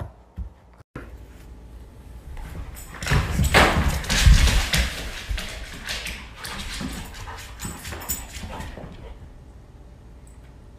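A large dog's paws scuffing and thudding on a hardwood floor as it moves about, in a run of uneven strikes that is loudest a few seconds in and dies away near the end.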